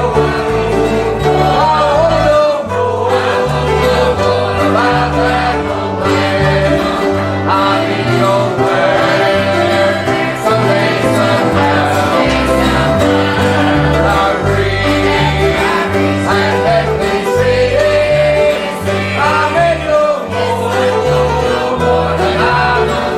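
Gospel song: singing over guitar and other instruments, with a bass line stepping from note to note.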